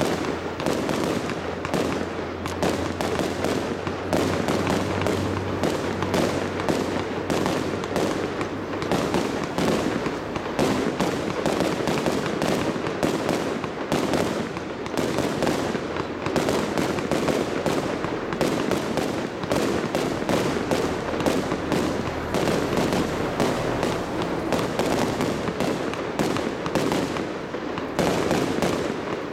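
Fireworks going off in a dense, continuous barrage: rapid bursts and crackling that never let up.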